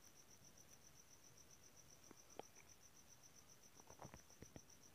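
Near silence with a faint high-pitched pulsing trill, about eight pulses a second, and a few faint clicks about two seconds in and again near the end.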